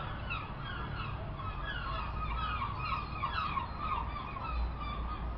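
Birds chirping: a steady run of short chirps, each falling in pitch, about three or four a second, over a low rumble.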